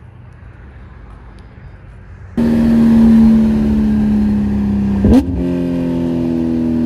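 Sports-car engines of a Porsche 992 GT3 and a C8 Corvette rolling side by side at a steady speed: a loud, even engine drone that cuts in suddenly about two seconds in, after a quieter low rumble. About five seconds in there is a brief click, and the pitch steps slightly higher.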